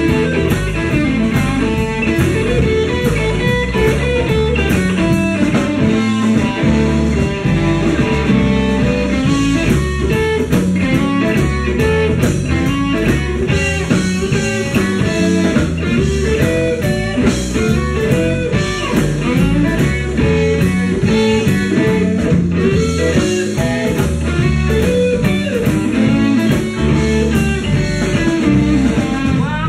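A blues band playing live, an instrumental stretch led by guitar, with drums keeping a steady beat.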